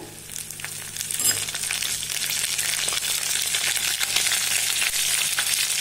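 Curry leaves and fennel seeds frying in hot oil in a cast-iron kadai, a steady sizzle that grows louder about a second in.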